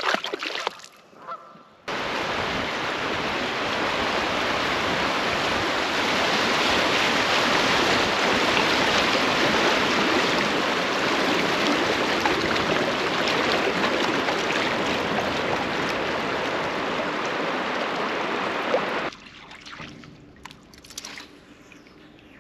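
Rushing water of a shallow river riffle splashing around a kayak as it runs through. The sound is loud and steady, cuts in suddenly about two seconds in and cuts off sharply a few seconds before the end.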